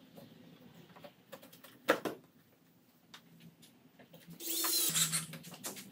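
A sharp wooden knock about two seconds in, then a cordless drill running as its bit bores into a pine frame rail, the motor note dropping about half a second after it starts.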